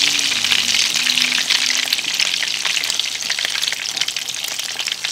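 Parmesan-crusted chicken breast sizzling and crackling in hot olive oil, a dense spatter of tiny pops that eases slightly toward the end.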